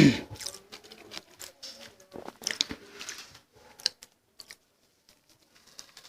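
Close-miked mouth sounds of a person biting into and chewing a vada pav: scattered wet clicks and smacks for the first few seconds, then it falls almost quiet.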